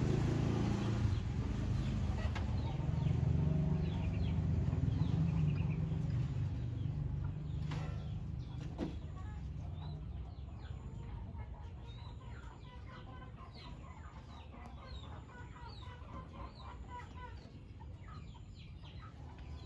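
Chickens clucking, joined by many short, high rising chirps that grow thicker in the second half. Under them an engine's low hum fades away over the first several seconds.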